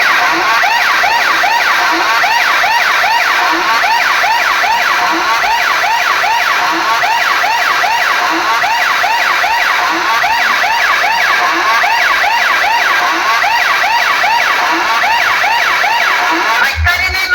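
Electronic siren effect played loud over a sound system: fast wailing sweeps repeating over and over, with a short low beep about every second. Heavy bass music cuts in just before the end.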